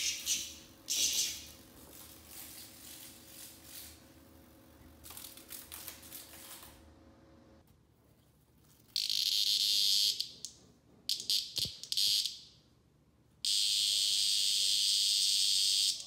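Cicada giving its loud, harsh distress buzz while a cat catches and holds it. The buzz comes in bouts: one short, a steady one about nine seconds in, a few quick stuttering buzzes, then a long steady buzz over the last couple of seconds that cuts off suddenly.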